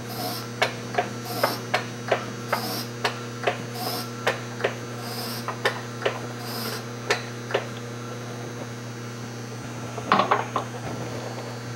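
Light metallic clicks and knocks, about two a second and then a short cluster near the end, as a G56 manual transmission on a jack is worked into position against the engine. Under them runs a steady electrical hum.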